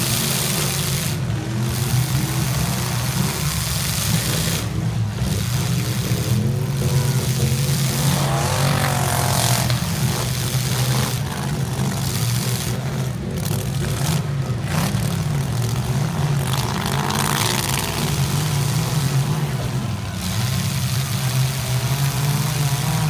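Several derby cars' engines running and revving, pitch rising and falling as the cars accelerate and back up.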